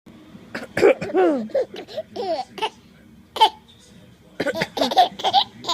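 Baby laughing in repeated bursts of high, gliding giggles, set off by someone coughing.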